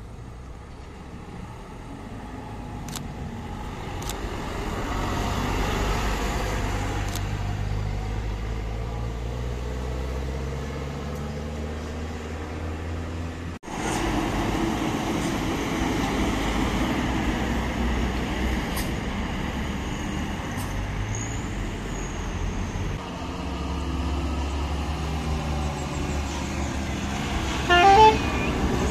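Large diesel bus engines running hard on a mountain road: one bus grows louder as it pulls away and past, then after a cut another bus and a truck climb by. Near the end a bus's multi-tone horn plays a quick rising run of notes, the loudest sound.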